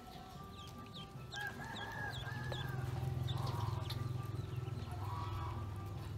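Ducklings peeping in short, falling chirps while they paddle in a water-filled metal basin, with a rooster crowing in the background about a second and a half in. A low rumble swells under them through the middle and is the loudest sound.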